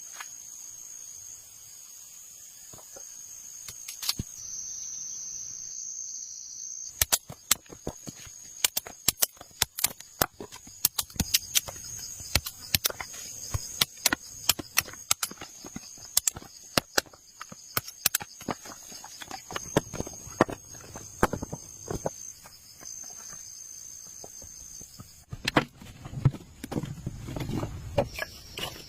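Insects chirring steadily in a high band. From about seven seconds in, many sharp, irregular clicks and knocks close by, several a second, are the loudest sounds.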